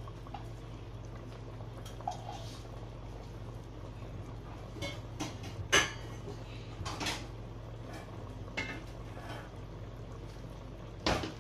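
Kitchen utensil clinking and scraping against pots and dishes as cooked beef is moved into another vessel: scattered light clinks, with a sharp one about six seconds in and another near the end, over a steady low hum.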